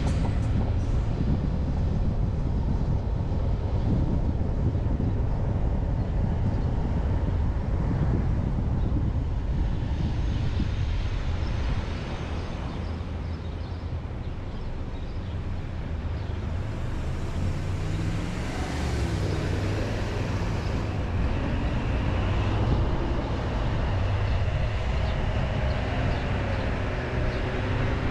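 Car cabin noise while driving: a steady low rumble of engine and tyres on the road. It eases a little about twelve seconds in as the car slows at an intersection, then the engine's pitch rises as it pulls away a few seconds later.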